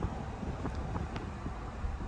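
Steady rumble and wind noise of a car moving on the road, with a few light clicks.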